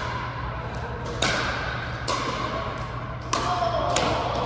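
Pickleball paddles hitting the ball back and forth in a rally: four sharp pocks roughly a second apart, with a few fainter taps, each hit echoing in a large gym hall.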